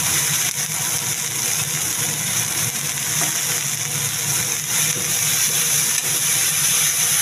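Chopped dheki shak (fiddlehead fern greens) sizzling with a steady hiss in a hot kadai as a spatula turns them, with a steady low hum underneath.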